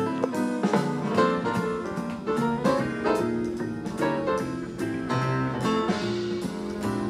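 Instrumental background music with many short, sharply struck notes.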